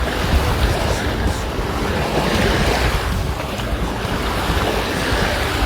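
Sea waves breaking and washing onto a beach, with wind rumbling on the microphone; a wave swells up about halfway through.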